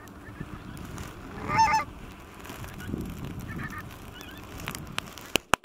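Geese honking overhead: one loud burst of calls a little over a second and a half in, then fainter calls a couple of seconds later. A few sharp clicks near the end.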